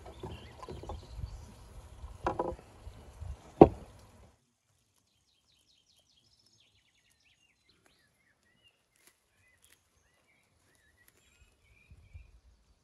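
Glass compote bottles being handled and set down on a wooden table: rustling with two sharp knocks, the louder one about three and a half seconds in. After about four seconds it drops to near silence with faint bird chirps.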